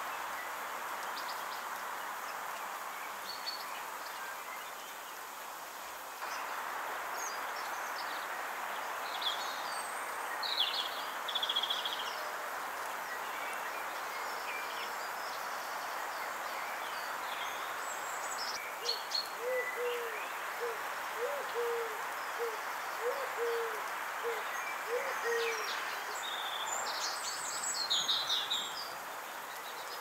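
Garden birds: small birds give short, high chirps here and there throughout. About two-thirds of the way through, a pigeon coos in a run of soft, low, evenly repeated notes lasting several seconds. A steady background hiss runs underneath.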